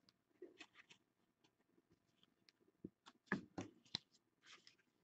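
Mostly near silence, broken by faint clicks and rustles of trading cards and a hard plastic graded-card slab being handled, with a sharper click a little past three seconds.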